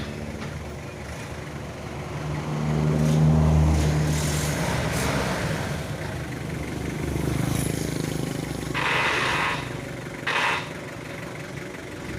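An engine running and revving up, loudest about three to four seconds in, then easing and picking up again; two short hissing bursts come near the end.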